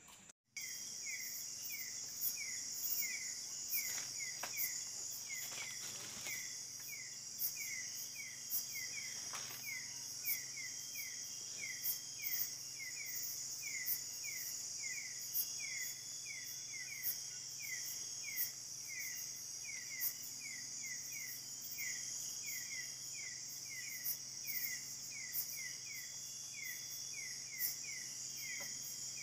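Night insect chorus: a steady high buzzing, with a short chirp repeating about three times a second.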